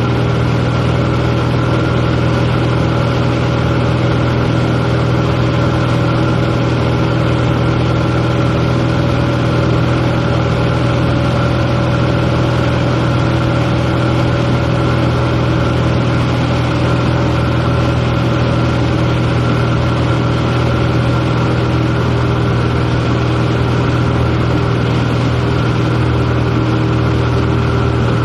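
Light airplane's piston engine and propeller running steadily in cruise, heard from inside the cabin as a loud, even drone with a strong low hum.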